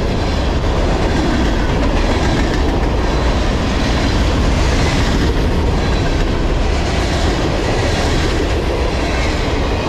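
Freight cars of a long CSX freight train rolling past at about 42 mph: a steady, loud rumble of steel wheels on the rails.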